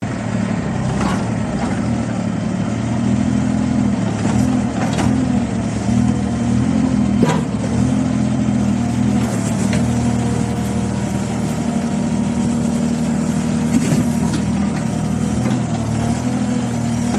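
Shanyi SY25-5 compact excavator's Yanmar diesel engine running steadily, with a few sharp knocks now and then.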